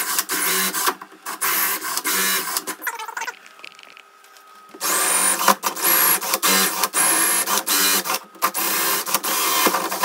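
DeWalt cordless drill driving a 25 mm hole saw into the edge of a wooden door, cutting the latch hole. Two long spells of cutting with a drop of about a second and a half in the middle.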